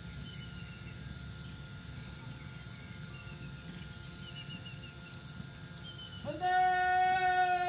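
A man's long, drawn-out shouted parade command, starting about six seconds in and held on one loud pitch. Before it there is only faint outdoor background.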